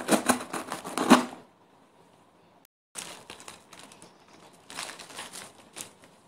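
A knife slitting the packing tape on a cardboard parcel, a dense crackly tearing for about a second and a half. After a short gap, bubble-wrap pouches rustle and crinkle as they are handled, loudest about five seconds in.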